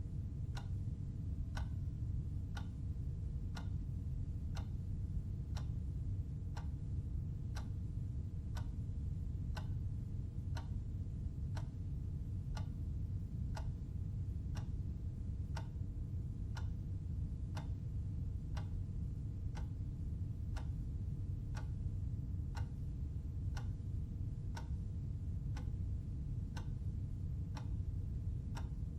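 Clock ticking steadily, with evenly spaced sharp ticks over a low steady hum.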